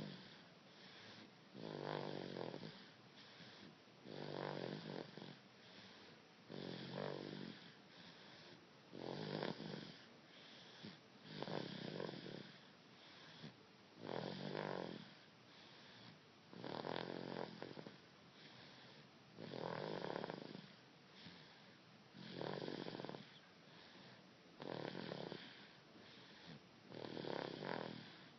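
A baby snoring in a steady rhythm: a snore on each breath about every two and a half seconds, with softer breathing between.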